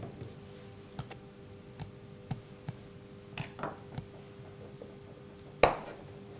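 Small clicks and taps of hands handling pump parts as a black rubber wear ring is pressed into the top of a metal SQF pump chamber, with one much sharper click near the end. A faint steady hum lies underneath.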